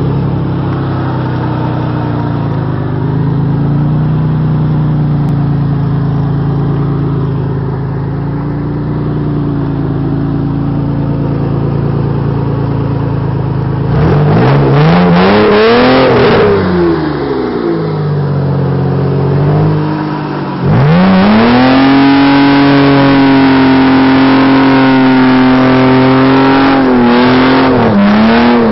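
Off-road 4x4's engine running steadily, then revved hard about halfway through, its pitch climbing and falling back, and held at high revs from about three-quarters through with a few quick dips near the end: the vehicle is struggling through deep mud with its wheels spinning.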